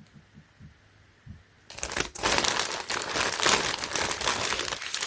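Plastic bag crinkling as it is handled, starting a little under two seconds in and running on as a dense, crackly rustle.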